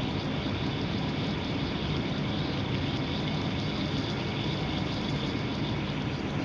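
Steady low machine hum with a hiss over it, unchanging throughout: the background drone of lab ventilation, with no distinct sound from the slow lithium reaction.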